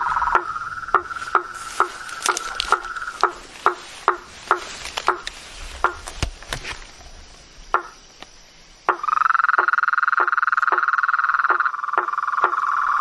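A chorus of calling animals. A steady high trill breaks off about three seconds in and returns louder about nine seconds in. Under it, short knocking calls repeat about twice a second throughout.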